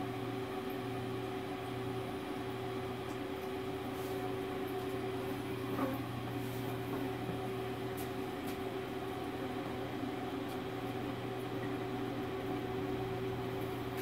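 Pellet grill's combustion fan running with a steady hum during start-up, with a faint tick about six seconds in.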